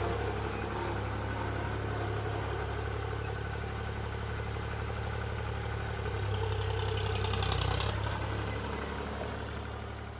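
HMT 4022 tractor's diesel engine running steadily near idle, getting a little louder around seven seconds in, during a test of the freshly rebuilt brakes.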